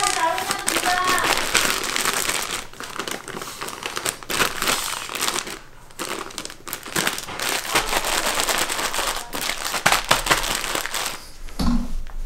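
Plastic zip-top freezer bags full of chopped green onions crinkling as they are handled and pressed flat, with dense crackling that stops shortly before the end.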